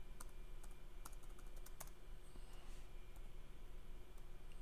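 Computer keyboard keys tapped lightly: a handful of separate keystrokes, most of them in the first two seconds, then sparser.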